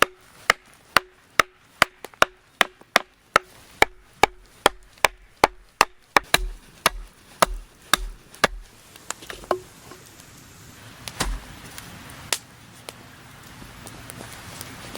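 A hand tool chopping into wood in quick, sharp blows, about two a second, each with a short ring. After about eight and a half seconds the blows stop, and a few scattered strikes follow.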